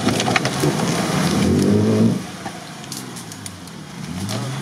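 Nissan Patrol GR's engine revving under load as the SUV forces its way through reeds and brush. The pitch climbs for about two seconds, drops off sharply, then rises again near the end, with scattered sharp cracks of brush against the vehicle.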